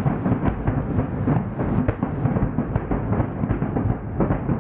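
Fireworks grand finale: aerial shells launching and bursting in a rapid barrage, the booms coming so fast they run together without a pause.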